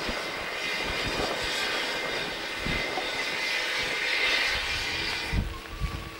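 Steam locomotive blowing off steam: a steady, loud hiss that stops about five seconds in, followed by a few low thuds.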